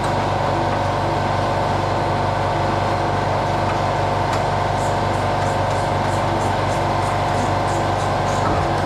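A machine running with a steady, unchanging drone and hum, with faint quick ticking over it in the second half.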